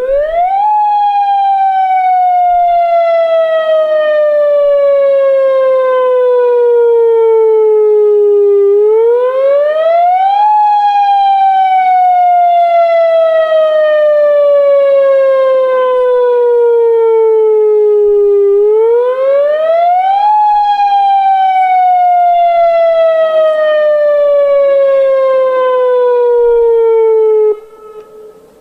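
Newly installed dam warning siren being tested over loudspeakers, loud. Its tone sweeps quickly up and then slowly down, three times about ten seconds apart, and cuts off about a second before the end.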